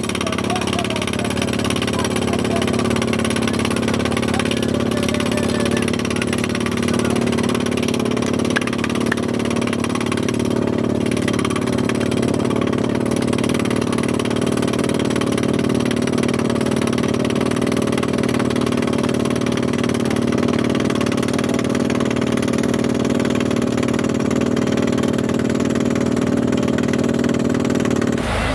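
Truck-mounted water-well drilling rig running steadily under load: a constant engine drone mixed with the rush of compressed air blasting dust and cuttings out of the borehole.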